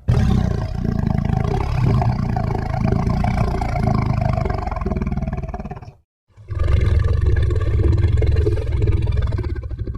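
Two long, deep monster roars from a creature sound-effect library: the first lasts about six seconds with a pulsing, rumbling texture, and the second starts after a short silence and runs about four seconds.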